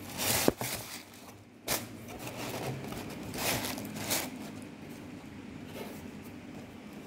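Packing tissue paper rustling and foam clogs shifting against a cardboard shoebox as they are handled, in a few short bursts with a sharp click a little under two seconds in.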